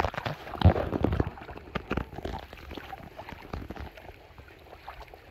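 Splashing in shallow muddy water as a fish is handled and held at the surface. There is a burst of splashes in the first two seconds, then lighter scattered splashing.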